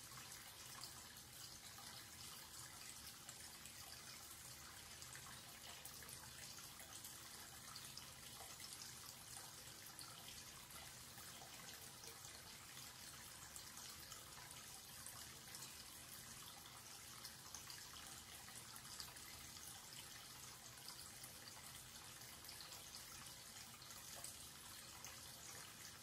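Tap water pouring steadily into a washbasin, a faint, even splashing into the shallow water in the bowl.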